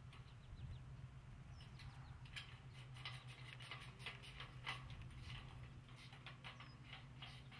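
Faint outdoor ambience: soft, irregular ticks and rustles, about one or two a second, over a low steady hum.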